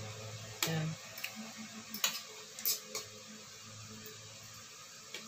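Eating sounds: scattered short, sharp smacks and clicks of chewing and of fingers and a spoon working fish and rice off the plates, over a faint low hum.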